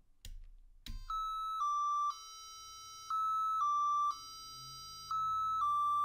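Programmed electronic beep tones repeating in a loop. Each cycle is two short high beeps, the second slightly lower, then a quieter low tone for about a second, and it repeats about every two seconds, starting about a second in after a click. The low tone marks the program falling into its nested inner loop.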